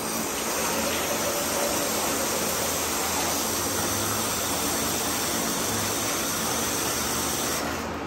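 Water spray hosing down a kennel floor: a steady, hard hiss that cuts off suddenly near the end.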